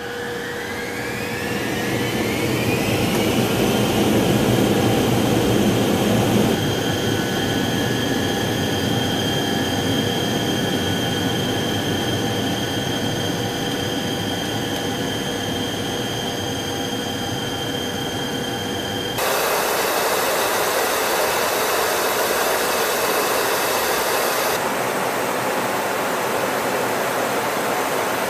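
Jet engines of a B-52H Stratofortress, eight Pratt & Whitney TF33 turbofans, heard from inside the cockpit: several whining tones rise in pitch over the first few seconds and then hold steady over a rushing noise. About 19 seconds in, the sound changes suddenly to a brighter, even rush of engine and air noise.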